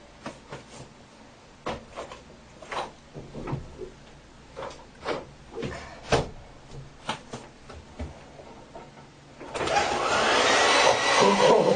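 Scattered light clicks and knocks of handling, then about nine and a half seconds in a hair dryer switches on with a sudden loud, steady blowing.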